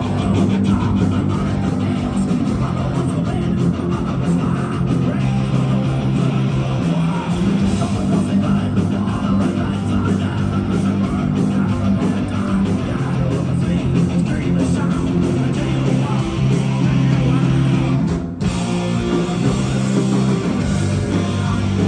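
Heavy metal band playing live: distorted electric guitars, bass and drums with singing, briefly cutting out a little after 18 seconds in.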